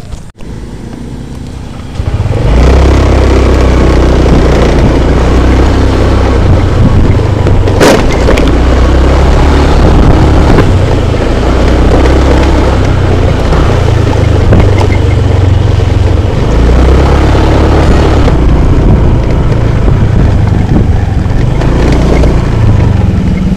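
Wind buffeting the microphone of a handlebar camera on a moving motor scooter, with engine and road noise under it. It starts suddenly about two seconds in and stays loud and steady.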